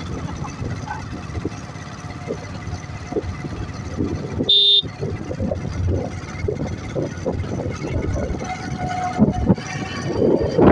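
Beach noise of wind buffeting the microphone over low surf, an uneven low rumble. It is broken about halfway by one short, high beep.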